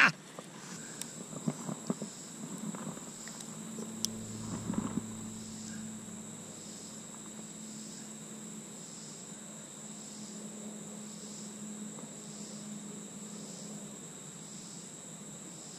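Insects singing outdoors: a continuous high-pitched trill with a slow pulsing beat, about once every three quarters of a second. A few knocks and rustles come in the first few seconds, and a faint low hum runs under most of it.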